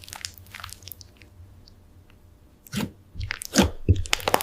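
Slime with beads mixed into it being pressed and squeezed by hand, giving crunchy, crackling squishes. There are a few small crackles at first, a short lull, then several louder crunchy clusters in the second half.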